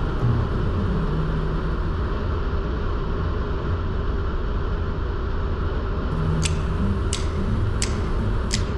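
Steady road and engine noise of a car being driven, a low rumble and hiss. Four sharp ticks come in the last couple of seconds, each under a second apart.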